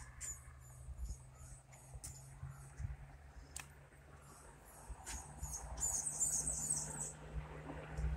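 Insects chirping in short, very high-pitched pulses, about three a second, getting denser and louder about six seconds in, over a low steady hum and faint wind rumble.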